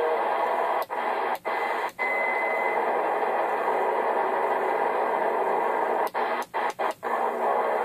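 Browning Sabre AM CB radio's speaker hissing with band static as its channel knob is turned. The audio cuts out briefly at each channel step, three times in quick succession early on and four times near the end, with a short faint whistle about two seconds in.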